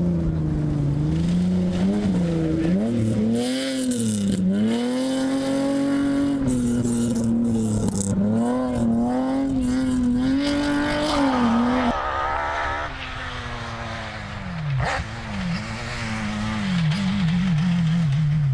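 Mitsubishi Pajero rally car's engine revving hard and falling back again and again as it is driven through gear changes and slides on a dirt stage. About twelve seconds in the sound switches abruptly to a rally buggy's engine, quieter at first, its revs rising again near the end.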